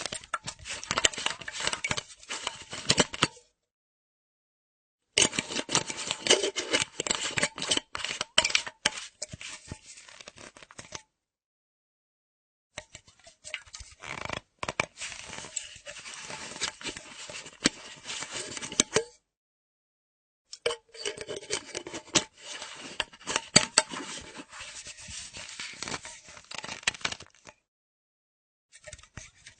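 Screw cap of a half-empty metal flask being unscrewed and screwed shut: dense scraping and clicking of the metal threads with a faint metallic ring. It comes in four separate takes of about four to seven seconds each, with silence between them, and another begins at the end.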